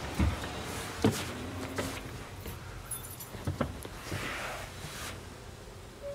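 Several scattered knocks and thumps inside a van cab, the two loudest in the first second or so: handling noise from the camera being carried about and bumping the seats and trim.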